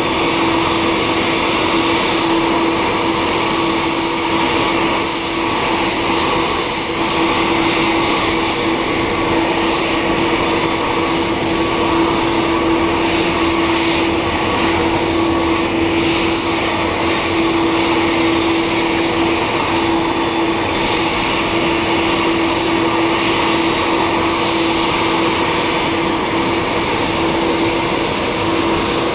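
Airbus A330-303's General Electric CF6-80E1 jet engines running at idle after pushback: steady jet noise with an unchanging high whine over a lower hum.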